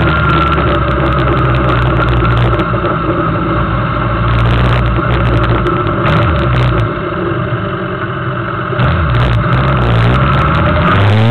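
Suzuki GSX750F motorcycle's inline-four engine running under way at a mostly steady pitch. It drops quieter for a couple of seconds past the middle, then the revs climb again near the end.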